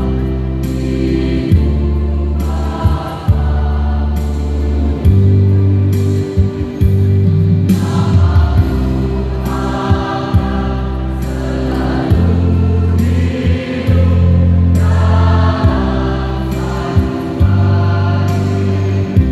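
Mixed choir singing held chords in phrases of a second or two, with short breaks between them.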